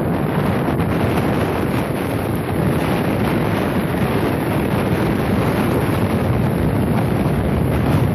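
Steady rush of air buffeting a handheld phone's microphone while snowboarding downhill, mixed with the hiss of the snowboard sliding over the snow. With no wind blowing that day, the buffeting comes from the rider's own speed.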